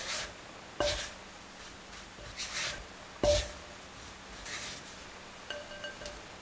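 A spatula cutting and scraping through crumbly cocoa tart-crust dough in a glass mixing bowl, with short gritty swishes. Twice, about one and three seconds in, it knocks sharply against the bowl, which rings briefly. Lighter taps near the end set the glass ringing again.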